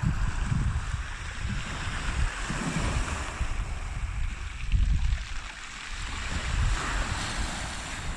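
Wind buffeting the microphone in irregular gusts over the steady hiss of sea surf.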